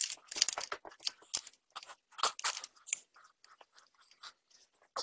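Irregular metal clicks, clinks and scrapes as a chainsaw bar and chain are fitted onto an angle grinder's spindle and the clamping nut is worked with a spanner. The clicks come thick at first and thin out to a few faint ones near the end.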